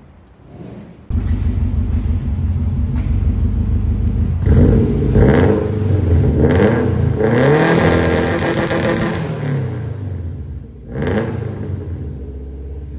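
2004 Subaru WRX STI's turbocharged flat-four running through a 3-inch custom stainless steel exhaust, heard at the tailpipe. It comes in about a second in at idle, is revved in a few short blips, then in one longer rev that rises and falls back to idle, and is blipped once more near the end.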